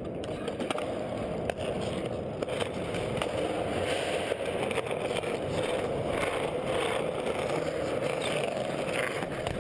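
Skateboard wheels rolling steadily over smooth concrete, with a few small clicks.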